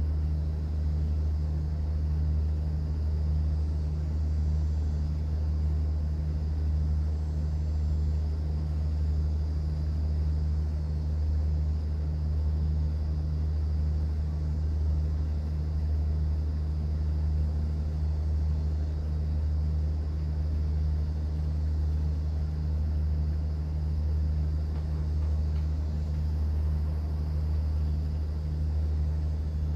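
Cruise boat's engine running steadily, a constant low drone with a faint wash of noise over it.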